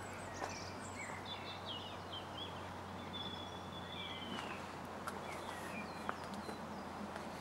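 Small birds chirping and calling in the background over a steady outdoor hiss, with a few faint clicks.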